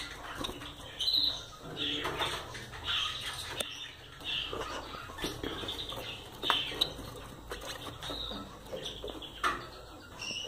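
Caged Gouldian finches moving about, with wing flutters, rustling and scattered clicks, and short high calls every second or so.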